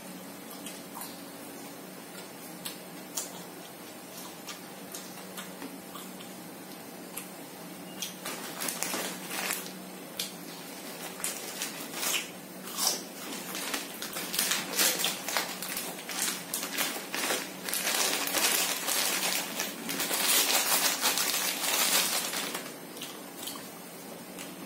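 Close-up eating sounds of fried fish and rice eaten by hand: at first a few sparse clicks and smacks, then from about eight seconds in a busy stretch of loud chewing, crunching and rustling, at its busiest in the last third.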